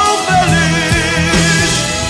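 Band music from a Brazilian soul song: a bass line and drums under held, wavering melody lines.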